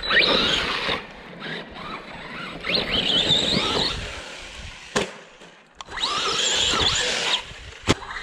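Arrma Big Rock RC monster truck's electric motor and drivetrain whining in three bursts of throttle, the pitch rising with each burst. There is a sharp knock about five seconds in and another near the end.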